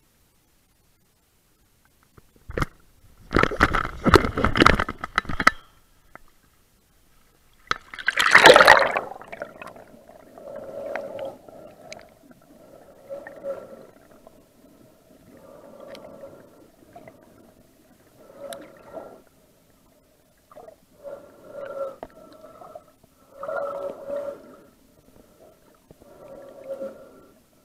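A couple of seconds of loud rushing noise, then a splash about eight seconds in as the camera goes under water. After that come muffled underwater sounds with a hollow tone, recurring every two to three seconds: a snorkeler's breathing heard through the water.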